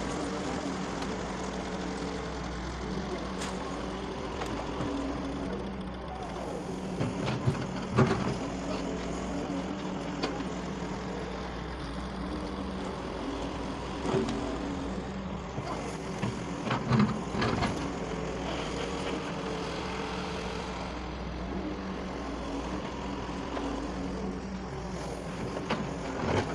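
Doosan DX140 excavator's diesel engine running steadily under working load, with a few sharp knocks and clunks scattered through, about a third of the way in, halfway and two thirds in.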